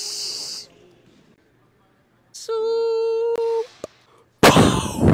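Vocal sound effects made with the mouth: a hissing noise that stops just under a second in, then a hummed note held steadily for about a second. A loud, noisy mouth-made burst follows near the end.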